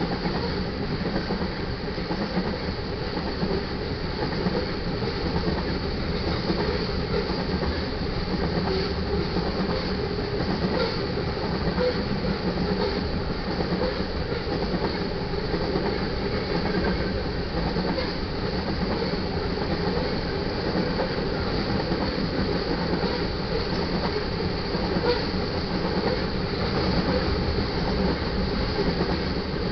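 Covered hopper cars of a freight train rolling past steadily: a continuous rumble of steel wheels on rail that holds level throughout.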